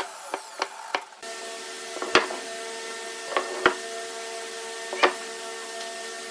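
Sharp knocks on wood, a few light ones then several loud single strikes spaced a second or so apart, over the steady hum of a small electric machine that starts about a second in.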